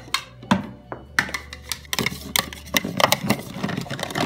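Irregular plastic clicks and clatters of a plastic spatula stirring toy food in a plastic toy saucepan, with background music.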